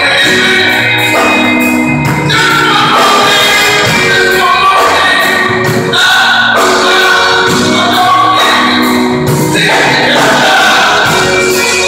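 Live band music: drum kit, guitar and keyboard playing a song with singing voices on microphones.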